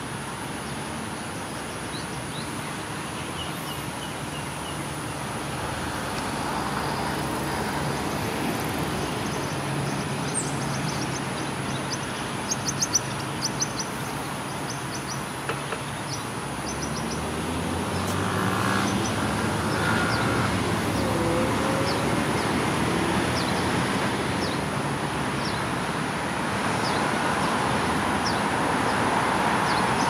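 Steady rumble of distant city traffic that swells a little partway through, with short high bird chirps scattered over it, several in quick succession near the middle.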